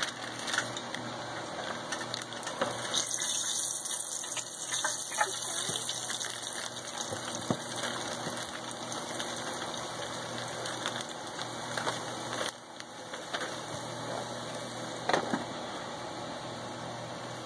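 Hot oil in an electric deep fryer sizzling and bubbling steadily as pieces of chicken are frying and more are lowered in, with a brighter hiss about three seconds in. The sizzle drops a little past the middle, and a short knock follows near the end.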